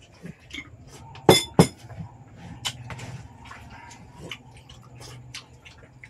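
Scattered clicks and clinks of oyster shells and tableware being handled on the table, with two sharp knocks close together a little over a second in, over a steady low hum.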